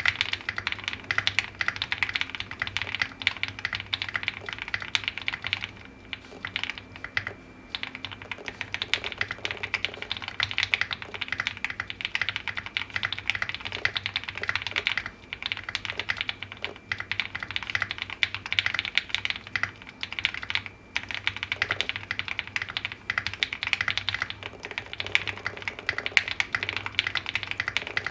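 Typing on a QK65 65% mechanical keyboard with a POM (acetal) plate: a fast, continuous run of key clacks, with a few short pauses.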